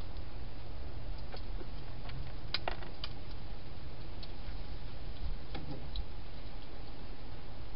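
Wild hedgehog eating from a dish inside a plastic feeding box: a few scattered, uneven crunching clicks, the loudest a little before the middle, over a steady low hiss.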